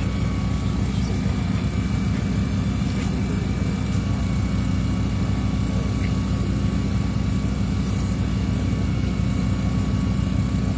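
An engine idling: a steady, low, even hum that neither rises nor falls.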